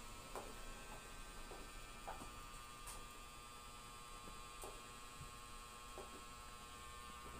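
Quiet room tone with a steady electrical hum and a few faint clicks.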